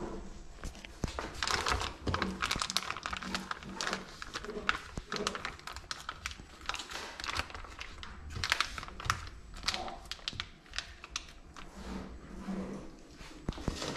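Plastic wrapping of a packet of sliced meat crinkling and tearing as it is pulled open by hand, with irregular crackles and clicks as the slices are peeled apart.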